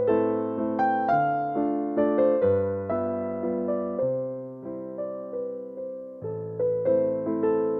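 Background music: a slow, gentle piano melody over low bass notes, each note struck and then fading.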